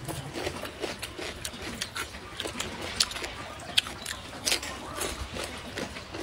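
A person chewing food close to the microphone, with wet lip smacks and a run of sharp mouth clicks.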